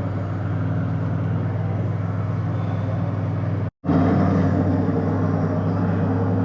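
Steady engine drone and road noise of a car being driven. The sound cuts out briefly just under four seconds in and then resumes a little louder.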